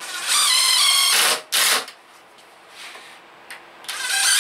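Cordless drill driving screws into a wooden seat slat: a long run with the motor pitch rising, then a short second burst to seat the screw. A second screw starts the same way near the end.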